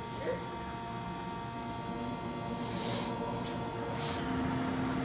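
Steady electrical hum made of several constant tones, with a few faint clicks and a short hiss about three seconds in; a low steady tone joins the hum a little after four seconds.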